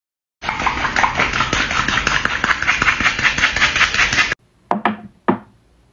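Thick aloe vera gel squelching and crackling as hands pull and squeeze it out of a jar, a dense crackly sound for about four seconds that cuts off abruptly, followed by two short knocks near the end.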